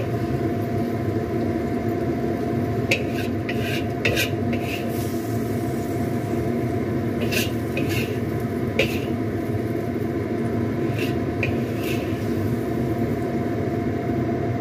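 Spatula scraping and clinking against a wok as stir-fried water spinach and quail eggs are scooped onto a plate: about ten short scrapes and knocks, scattered mostly between about three and twelve seconds in. Under them runs a steady hum.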